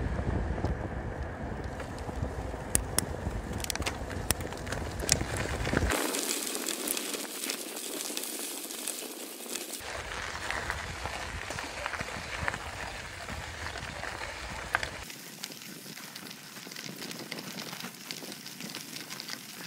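Riding a bicycle: wind rumbling on the microphone at first, then tyres crunching and crackling over a gravel track, with scattered sharp clicks. The sound changes abruptly a few times.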